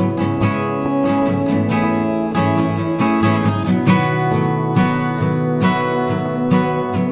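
Instrumental music: a plucked string instrument played in a steady rhythm of picked and strummed notes over a low sustained accompaniment.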